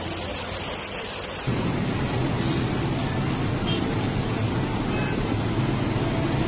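Steady rushing noise of heavy rain and floodwater in a rainstorm. It jumps suddenly louder and deeper about a second and a half in.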